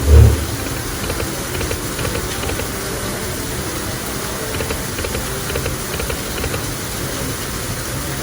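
Steady rushing of an indoor casino waterfall, with a dull thump right at the start and faint electronic slot-machine tones and ticks over it.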